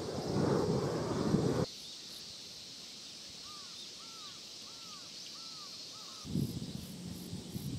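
Jet noise from an ANA Boeing 737 passing overhead, a low rushing sound, cut off sharply about two seconds in. A bird then calls five times in quick succession over a quiet background. A low rushing noise comes back near the end.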